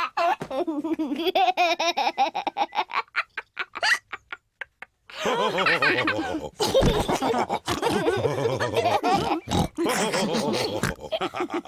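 Cartoon pig characters laughing, in quick repeated pulses that trail off and stop for about a second. The laughter starts up again, fuller and louder, from about five seconds in.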